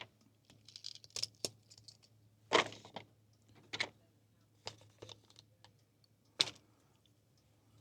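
Scattered light clicks and knocks of cooking gear and food being handled, about seven in all, over a faint steady low hum.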